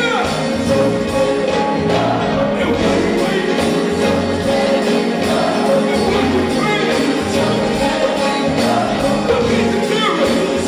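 Live gospel music: a band with a pulsing bass beat and singers and choir voices, played over a PA.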